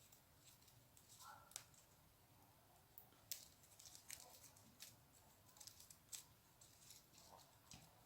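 Faint scattered rustles and ticks of paper raffia yarn being worked with a crochet hook.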